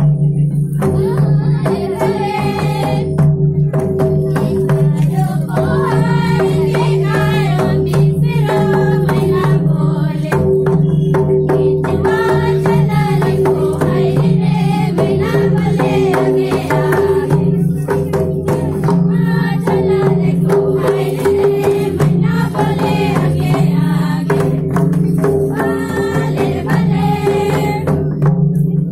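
Voices singing a folk dance song together, over steady rhythmic strokes of a large barrel-shaped drum.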